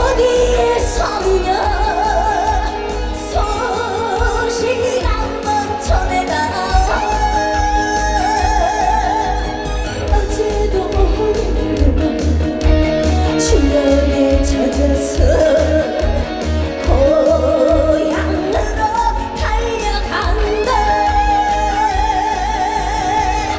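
Trot song performed live: a woman's voice sings the melody with a wide vibrato over a band backing track that has a steady, even bass beat.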